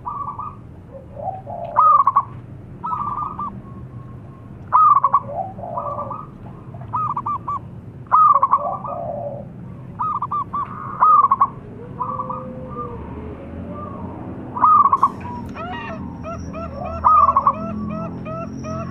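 Zebra dove (perkutut) singing loudly: repeated phrases of quick staccato coo notes, one phrase every one to three seconds. From about three-quarters of the way in, a sharp click is followed by a fast, evenly repeating chirping and a thin high steady tone under the coos.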